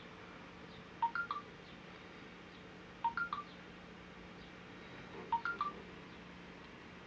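A short electronic phrase of three or four quick beeps repeats about every two seconds, three times, over a faint steady hum.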